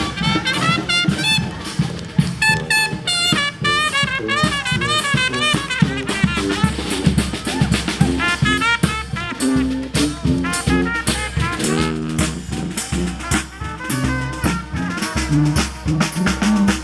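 Brass street band playing: horns carry a melody over drums keeping a steady beat.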